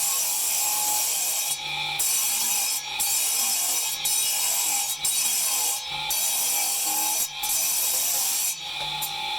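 Marble being worked by hand with an abrasive tool: long scraping strokes of about a second each, repeated with short breaks between them.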